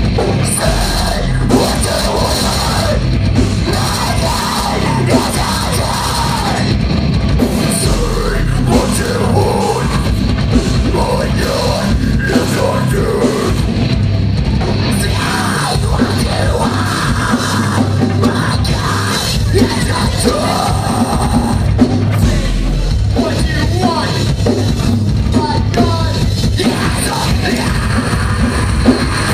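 Live metalcore band playing loud, with heavily distorted guitars, pounding drums and screamed vocals.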